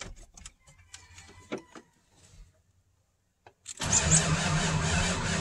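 A few faint clicks, then about four seconds in the starter engages and cranks the 1997 Ford F350's 7.3 L Power Stroke diesel, which turns over steadily without firing. The owner puts the no-start down to a weak battery.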